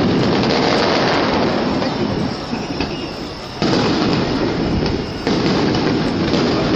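Fireworks going off in quick succession: a dense, continuous crackling and banging, with sudden fresh volleys about three and a half and five seconds in.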